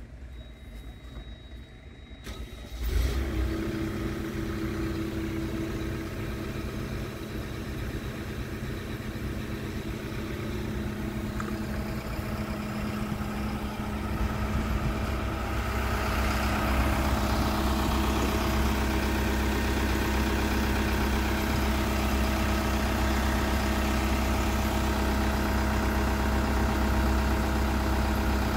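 Scania R truck's diesel engine starting with a sudden surge about three seconds in, then idling steadily. It gets louder in the second half as the microphone nears the exhaust pipe.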